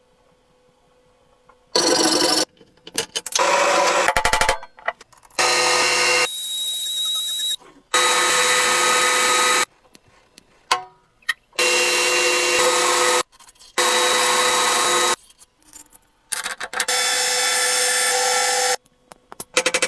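Power tool running in repeated short runs of one to two seconds, each starting and stopping abruptly, some with a steady motor whine.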